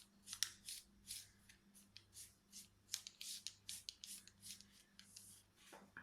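Fingers rubbing butter over a slab of kaju katli (cashew fudge) dough: a faint, quick run of soft swishing strokes, about three a second.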